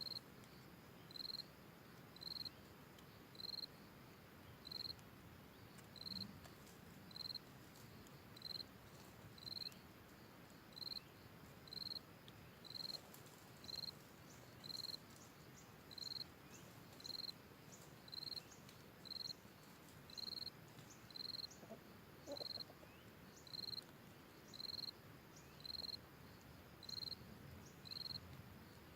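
Faint insect call, cricket-like: a short, high chirp repeated at a steady pace, a little more than once a second.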